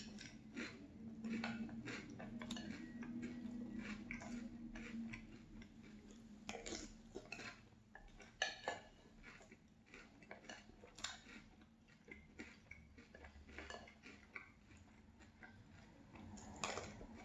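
A spoon clinking and scraping against a cereal bowl in scattered short clicks, mixed with crunchy chewing of sweetened cereal in milk.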